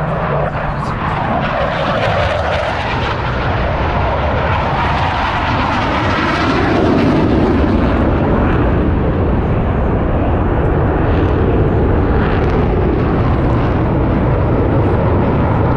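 Blue Angels jets flying past, a loud continuous jet-engine roar whose tone sweeps up and down as the aircraft pass.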